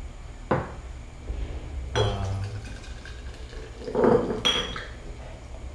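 Glass bottle and glass mug knocking and clinking, three sharp strokes about a second and a half apart, some with a short ring, as beer is poured from the bottle into the mug.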